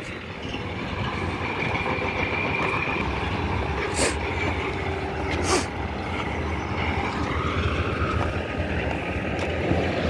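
Steady low engine rumble of heavy construction machinery, with a faint whine over it. Two sharp clicks come about four and five and a half seconds in.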